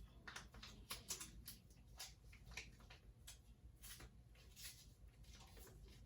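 Faint, irregular clicks and crackles of a wrapped Hi-Chew chewy candy being handled, unwrapped and eaten, over a low room hum.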